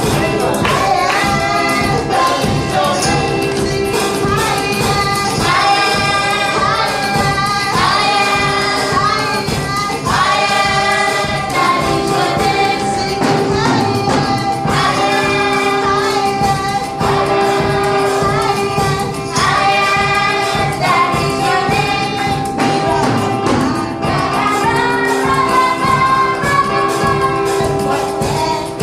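A choir, children's voices likely among them, singing a gospel praise song in repeated phrases over steady held instrumental chords.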